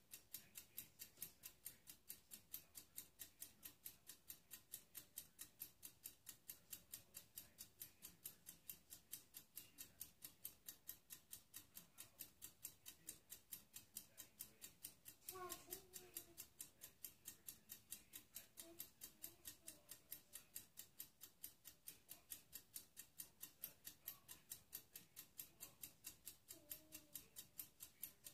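Faint, steady ticking, about three ticks a second, over near silence. A brief faint voice comes from elsewhere a little past halfway.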